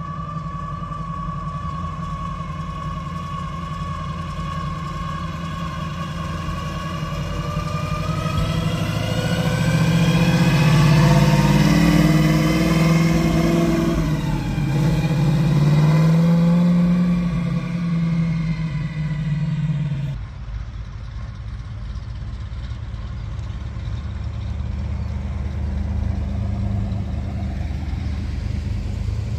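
Classic car engines running at low speed on the drive. One car's engine grows louder and passes, with a high whine that rises in pitch as it comes up, then drops away suddenly about two-thirds of the way in. After that a lower, steadier engine rumble comes from the next car rolling up.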